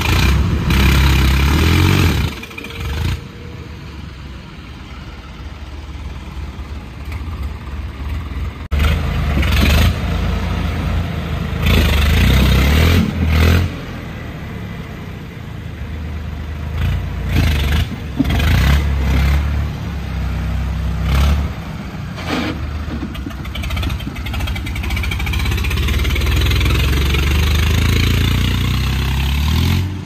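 Swaraj 855 FE tractor's diesel engine being revved hard as the tractor is driven, the throttle opened and eased off several times so the engine note rises and falls in loud surges.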